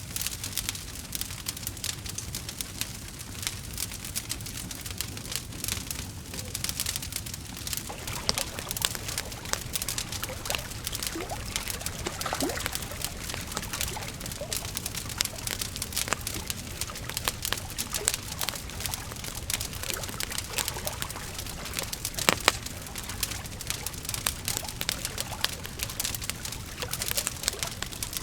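Wood fire crackling: a dense run of small irregular pops and snaps over a steady hiss, with one louder snap about three-quarters of the way through and a few short faint whistling tones near the middle.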